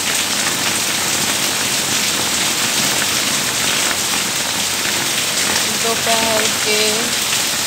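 Rain falling steadily, a dense, even hiss that does not let up. A woman's voice is heard briefly about six seconds in.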